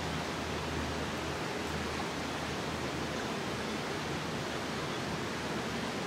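A steady, even rushing noise with a faint low hum underneath, unchanging throughout.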